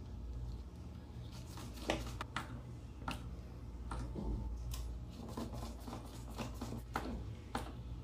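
Scattered small clicks and taps of a screwdriver and wire being worked into the terminals of a magnetic contactor, over a steady low hum.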